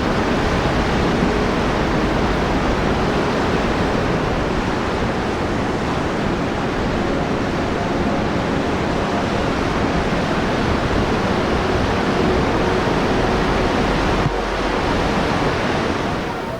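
Steady rush of ocean surf and wind on the coast, loud and unbroken.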